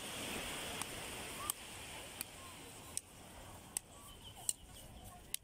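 Beach ambience: a steady hiss of surf and wind with faint distant voices, growing quieter about halfway through, and a series of sharp clicks about every three-quarters of a second.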